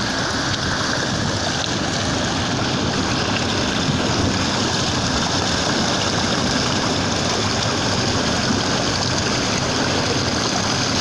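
Floodwater rushing and churning steadily past a wooden railing, the overflow of a lagoon swollen by heavy rain.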